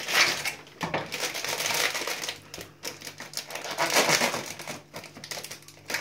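Crinkling and rustling of a small packet of chocolate chips as it is handled and opened, in two stretches, the second shorter, about three and a half seconds in.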